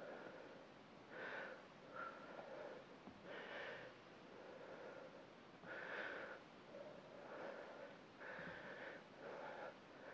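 A woman's faint, rhythmic breathing, a breath every second or so, as she works through a set of dumbbell rows.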